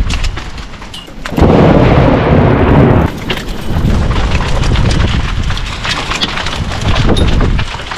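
Thunderstorm: heavy rain with many sharp pattering hits, and wind buffeting the microphone. A loud low burst starts about a second and a half in and cuts off after about a second and a half.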